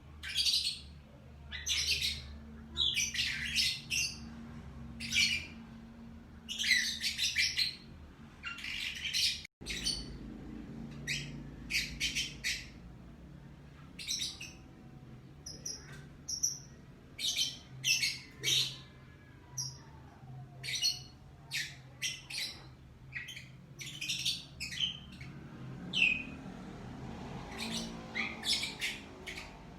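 Lovebirds chirping and squawking in quick runs of short, shrill calls throughout, over a low steady hum.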